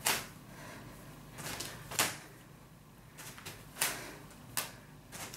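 A person doing a floor exercise on a mat: a row of short, sharp sounds, one every second or so, in time with the repetitions, over a faint steady hum.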